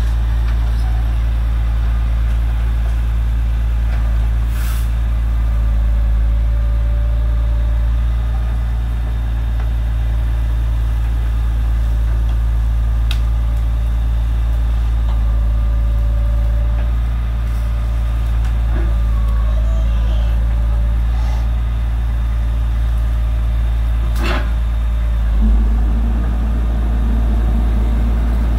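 Diesel engine of a grapple-loader truck running steadily, with a few sharp knocks from the loader at work; about 25 seconds in the engine note changes and rises as it takes more load.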